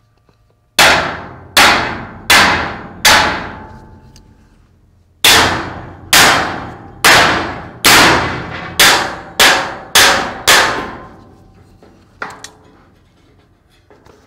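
Hammer striking steel on a loader bucket, hard metal-on-metal blows that ring after each hit. There are four strikes, a pause, then eight more that come quicker, as the angle iron is knocked to free it.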